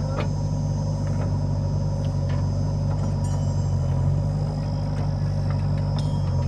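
Heavy diesel engine of a backhoe loader or tractor running steadily, with a deep, even hum.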